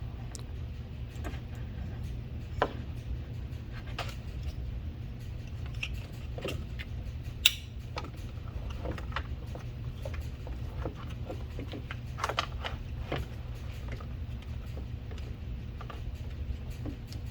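Scattered light clicks and rattles of small plastic and metal door-latch parts being handled, over a steady low hum. The sharpest click comes about seven and a half seconds in.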